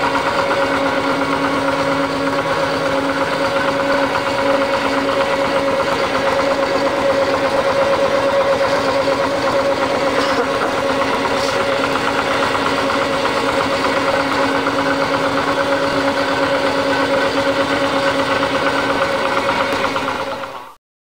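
An engine running steadily, a fast even pulsing with a few constant tones over it, fading out just before the end.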